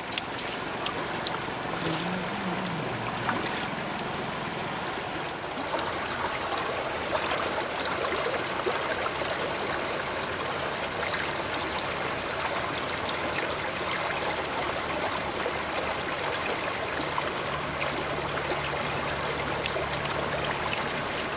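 Shallow water trickling steadily over stones in a small stream, with a thin high steady tone above it that is strongest for the first five seconds or so.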